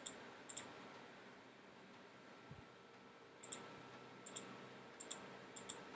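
Computer mouse clicking: about six quiet, crisp paired clicks spread through, over faint room hiss.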